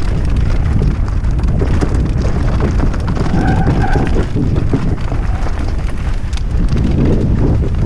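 Mountain bike riding fast down a rocky gravel singletrack: heavy wind rumble on the camera microphone, with constant knocks and rattles from the tyres and bike over the stones.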